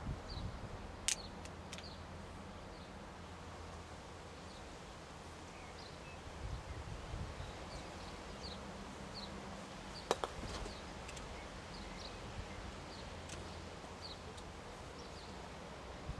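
Sharp clacks of croquet mallets striking balls: a pair about a second in and a louder pair about ten seconds in. Between them, a bird gives short high chirps over and over above a low, steady background rumble.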